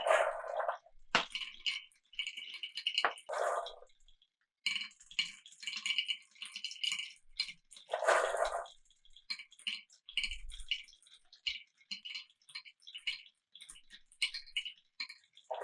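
Marbles running down a wooden and plastic marble run: a steady patter of quick clicks and ticks as they roll over the track joints, with short rattling clatters at the start and again about eight seconds in.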